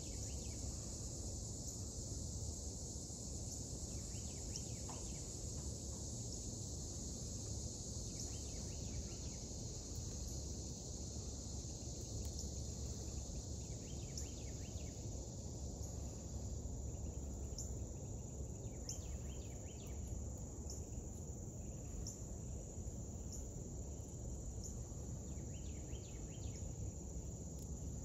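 Steady high-pitched insect chorus with a low rumble underneath and short chirps now and then.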